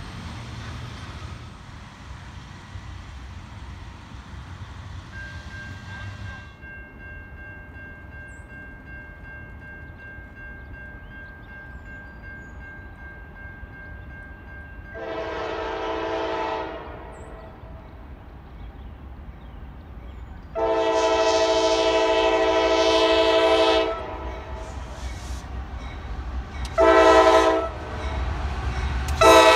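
The rumble of passing autorack freight cars dies away after about six seconds. Then the horn of an approaching Norfolk Southern diesel freight locomotive sounds four times, long, long, short, then long again, the grade-crossing signal, over a low engine rumble.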